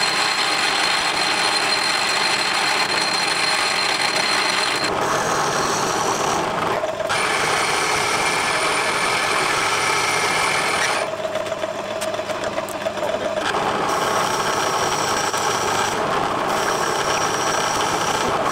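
Metal lathe running and cutting mild steel. First a parting tool parts off a small bar with a steady high-pitched whine over the cutting noise, then the lathe turns a larger steel shaft. The cutting sound changes abruptly several times.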